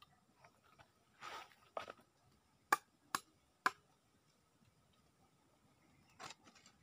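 Bolo knife blade striking and shaving the hard shell of a fruit held in the hand, in short sharp knocks. Three louder strikes come about half a second apart around the middle, with a few lighter cuts near the end.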